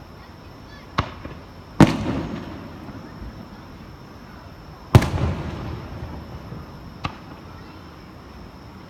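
Aerial firework shells bursting: four sharp booms. The two biggest, a little under two seconds in and about five seconds in, each trail off in a rumbling echo lasting about a second.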